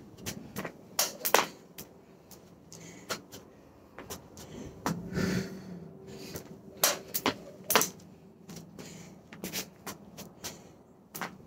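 Plastic jump rope slapping a wooden porch deck as feet land, a string of sharp, irregularly spaced knocks.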